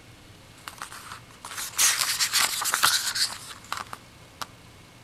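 Glossy paper pages of a Blu-ray digibook being turned by hand: a burst of paper rustling and crackling from about a second in until past three seconds, followed by two small taps.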